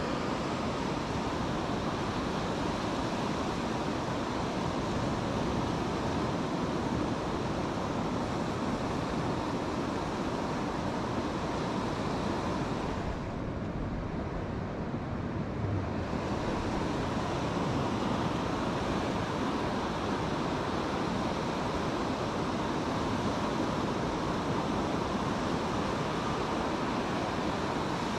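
Steady rush of surf breaking along a flat sandy beach, mixed with wind buffeting the microphone. The higher hiss dulls for a few seconds about halfway through.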